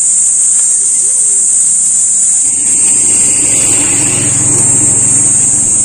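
A motor vehicle passes along the road, its engine rumble coming in about two and a half seconds in, swelling and then easing off. A steady high-pitched insect drone from the trees runs underneath.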